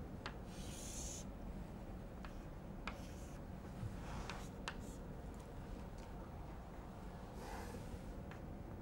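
Chalk on a blackboard: short scratchy strokes as lines and letters are drawn, with several sharp taps as the chalk strikes the board, over a faint steady room hum.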